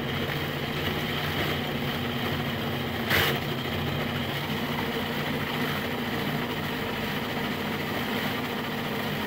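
Countertop food processor motor running steadily, its blade chopping a load of herbs and nuts into pesto. A brief louder knock about three seconds in.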